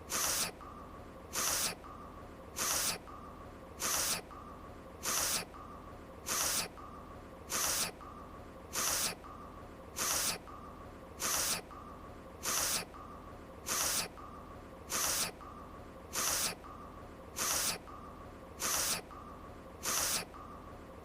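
A woman's short nasal sniff repeated at an even pace, about one every 1.2 seconds: one voiced sniffle looped over and over.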